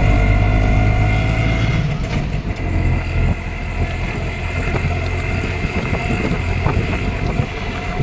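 A motor vehicle on the move: a steady, loud low engine and road rumble.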